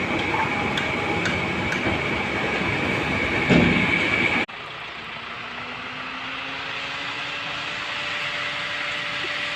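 Loud, steady machinery noise with a high whine, cutting off abruptly about four and a half seconds in to a quieter engine hum that slowly rises in pitch.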